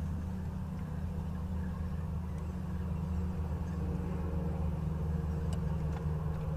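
A steady low engine hum, getting a little louder after about three seconds.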